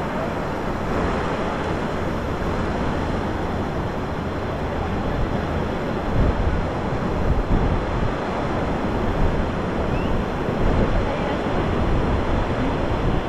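Ocean surf washing onto a beach, a steady rushing noise, with wind buffeting the microphone in gusts that grow heavier from about halfway through.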